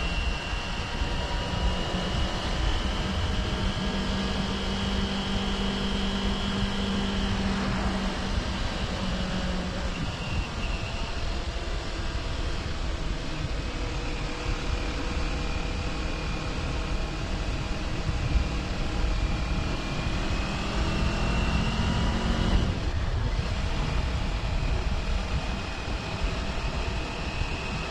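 Kawasaki Ninja 400's parallel-twin engine running steadily under way, heard over a low rush of wind. About 20 seconds in the engine note climbs, then breaks off briefly before it picks up again.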